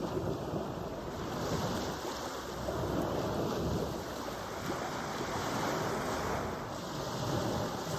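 Ocean surf washing ashore in swelling and ebbing waves, with wind buffeting the microphone.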